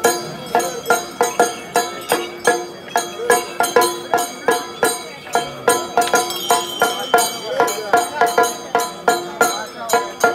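Music with a traditional sound, carried by a steady, evenly spaced percussive beat over sustained tones.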